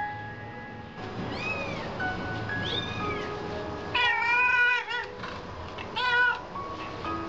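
Tabby cat meowing repeatedly: two fainter calls first, then a long loud meow about four seconds in and a shorter one about two seconds later. Soft background music plays underneath.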